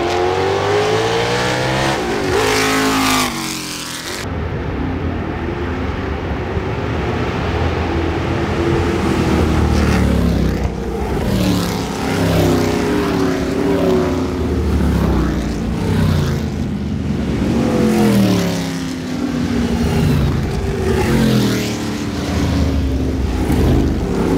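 Formula 5000 single-seater race cars with big production-based V8 engines running at speed. First one goes by with its note falling in pitch, then several cars accelerate, the pitch climbing and dropping again and again as they shift up through the gears.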